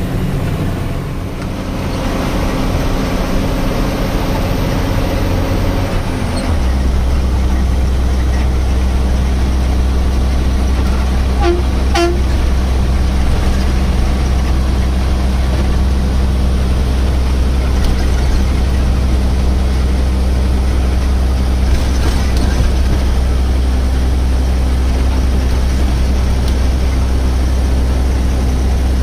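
Tata 3118 truck's diesel engine running under way, heard from inside the cab as a steady low drone that grows louder and steadier about six seconds in. Two short horn toots sound about twelve seconds in.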